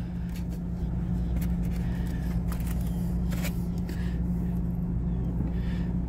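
Portable generator running steadily with an even, unchanging hum, and a few faint clicks from handling near the middle.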